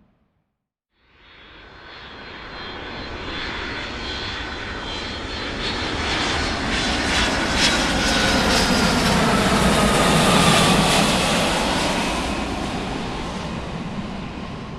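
Large aircraft flying by: after a second of silence its engine noise swells to a peak about ten seconds in and starts to fade, with a whining tone that drops in pitch as it passes.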